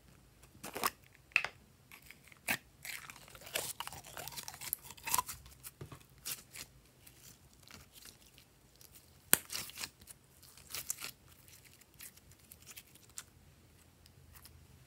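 Slime being squeezed out of a plastic bottle, then stretched and pressed by hand: irregular sticky pops, clicks and squelches, busiest in the first half.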